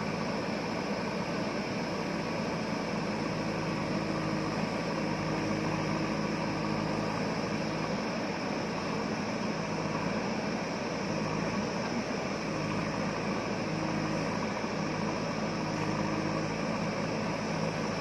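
JCB 3DX backhoe loader's diesel engine running steadily under load while the backhoe arm digs into the hillside.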